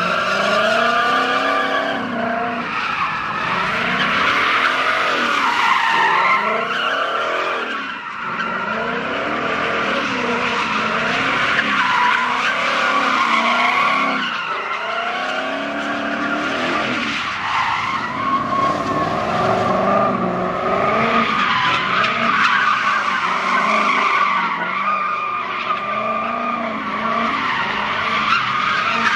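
A drifting car's tyres screech without a break, while its engine revs up and down over and over.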